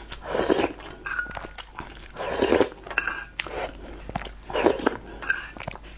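Close-miked eating sounds: spoonfuls of soft tofu in chili sauce taken into the mouth and chewed, with three louder noisy mouth sounds about two seconds apart and small clicks in between.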